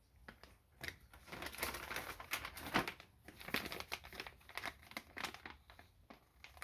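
Plastic packaging crinkling and rustling in irregular bursts as the pieces of a tire repair kit are handled and unpacked.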